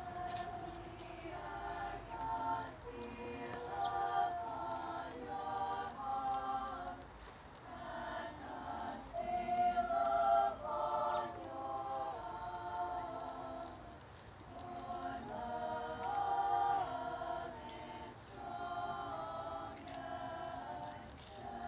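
A women's choir singing a cappella in several-part harmony, in sustained phrases with a brief breath break about two-thirds of the way through.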